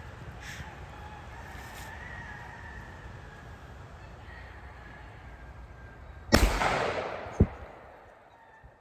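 A single gunshot about six seconds in, a sharp crack that rings away over about a second and a half, followed by a short sharp click about a second later.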